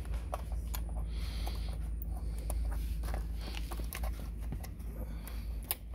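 Plastic wire-harness connectors and cables being handled and pushed into the sockets of a Juki DDL-9000C sewing machine's control board: scattered small clicks and rustling over a low, steady rumble, with a sharper click near the end as a connector latches into place.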